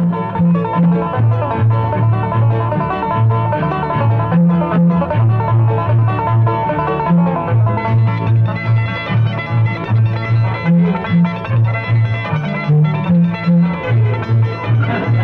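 Bluegrass string-band instrumental: acoustic guitars picking and strumming over a steady, bouncing bass line of about two low notes a second.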